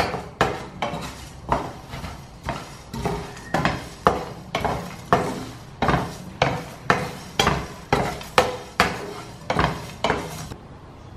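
Wooden spatula stirring and scraping whole spices dry-roasting in a nonstick frying pan, the seeds and cinnamon sticks rattling against the pan. The strokes come about twice a second and stop near the end.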